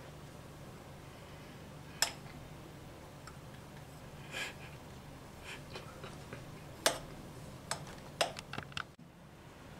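Metal spoon clicking and scraping against a stemmed dessert glass and a china plate as crushed biscuit crumbs are spooned in: a few sharp clicks, the loudest about seven seconds in, then a quick run of clicks near the end, with softer scraping between, over a low steady hum.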